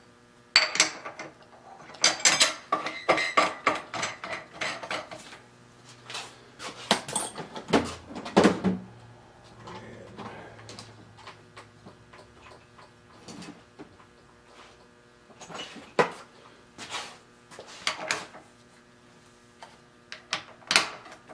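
Metal tooling clinking and clanking at a milling machine spindle as a half-inch collet and a drill chuck are fitted: scattered taps and clanks, busiest in the first half, over a faint steady hum.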